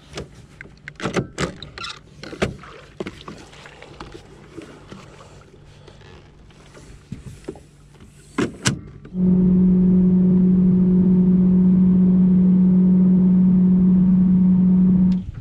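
Knocks and clicks of a bow-mount electric trolling motor being lifted and locked into its stowed position, with two sharp clacks about eight seconds in. Then a boat motor starts a loud, steady drone, holding one pitch as the boat runs along, and stops abruptly just before the end.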